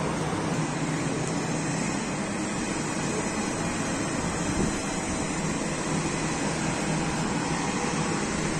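Steady noise of a moving road vehicle: a low engine and tyre rumble under an even hiss.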